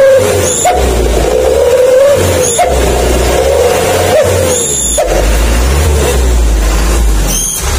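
Wolf-howl (srigala) exhaust whistle tip, the standard size 28, held on the tailpipe of a Hino Dutro diesel truck, howling as the engine is blipped. The wavering tone rises and falls about three times over the low engine rumble, with a few short sharp clicks.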